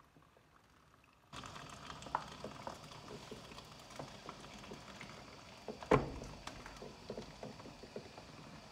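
Hot water running from a water purifier's tap into a vinyl bag: a steady hiss that starts suddenly about a second in, with small crinkles and rustles throughout and a thump about six seconds in.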